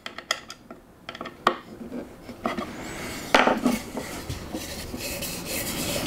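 Small metallic clicks of a hand driver turning the metal grub screw in a Festool Domino connector set in wooden boards. From about halfway, a denser scraping and rubbing as the wooden pieces are handled and slid together.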